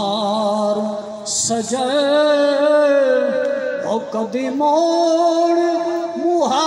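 A man singing a Saraiki devotional kalam unaccompanied into a microphone, holding long wavering notes with short breaks for breath.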